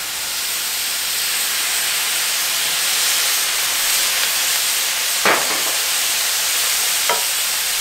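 Red wine hitting a hot flat-top griddle of sliced deer heart and onions, hissing and sizzling loudly as it boils off into steam. Two short knocks come about five and seven seconds in.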